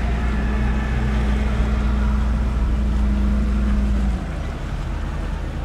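Cabin cruiser's inboard engine running at low harbour speed, a steady low drone. About four seconds in the hum drops away and the sound becomes quieter.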